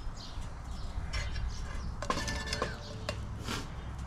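Metal tongs scraping and clinking against a steel frying pan while pushing a pat of butter around it, with a short ringing stretch of metal on metal about two seconds in. Small birds chirp in the background.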